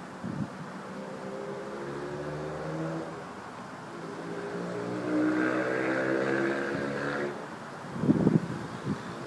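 A motor vehicle engine running, its pitch drifting up and down. It grows louder about five seconds in and cuts off sharply a couple of seconds later. Wind then buffets the microphone near the end.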